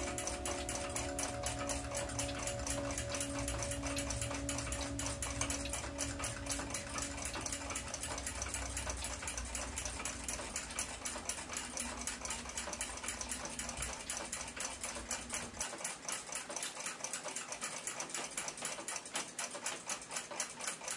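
Rapid, steady ticking. A low hum under it cuts out about three-quarters of the way through.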